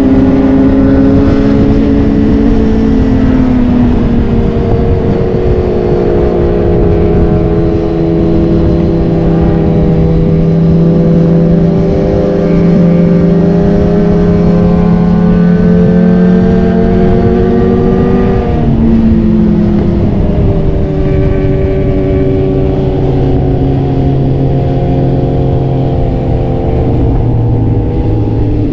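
Sport motorcycle engine running under load on an uphill ride, its pitch rising and falling slowly, with sharp drops in pitch about 3 s in and again about 18 s in as it shifts gear, over steady wind noise.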